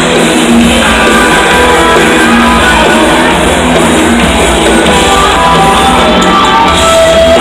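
Loud rock music with a voice singing over it.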